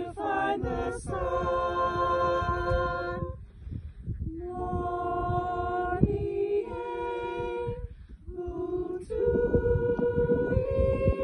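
Small mixed vocal ensemble singing a cappella in harmony: long held notes in phrases, with two short breaks for breath, about three and eight seconds in.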